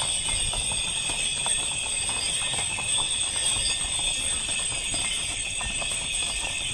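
Horses' hooves clip-clopping on an asphalt street as several ridden horses walk past, a quick irregular patter of hoof strikes. A steady high-pitched buzz runs underneath throughout.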